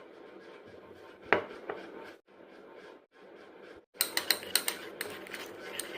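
A metal spoon clinking against a small dish. There is one clink about a second in, then from about four seconds in a run of quick clinks, several a second, as in stirring.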